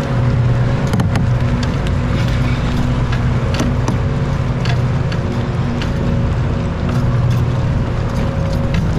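A small motor hums steadily while the kayak moves, with light clicks and ticks scattered through it from the angler's fishing gear.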